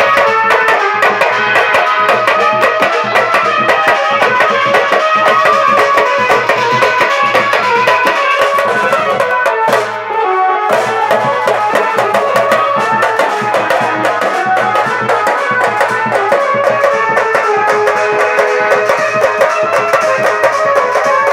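Marfa band playing: daf frame drums and a dhol beating a fast, dense rhythm under a melody line, dipping briefly about ten seconds in.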